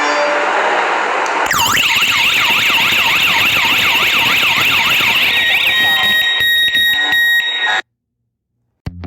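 Alarm siren wailing in fast, even rising-and-falling sweeps, about two to three a second, over a steady high tone and hiss. The siren cuts off abruptly about eight seconds in. After a second of silence, distorted electric guitar music starts at the very end.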